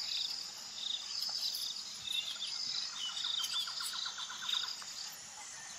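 Forest ambience of insects and birds: a steady layer of high chirps and trills, joined from about three seconds in by a rapid pulsing call of some eight beats a second that stops near the end.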